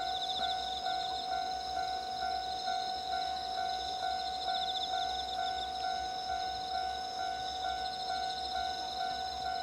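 Japanese railway level-crossing warning bell ringing in steady repeated strokes, about two a second, signalling an approaching train.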